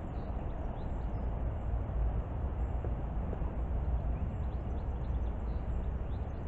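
Outdoor garden ambience: a steady low rumble with faint, high bird chirps scattered through it.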